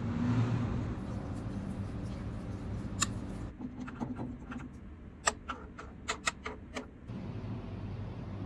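A steady low hum. In the middle come several sharp clinks of a metal spoon against a frying pan as fritters are shaped in the oil.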